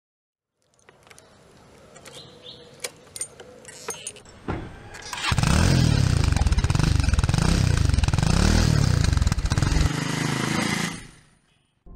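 A few faint clicks and handling noises, then a motorcycle engine starts about four and a half seconds in and runs loudly, its pitch rising and falling several times as the throttle is worked, before cutting off abruptly near the end.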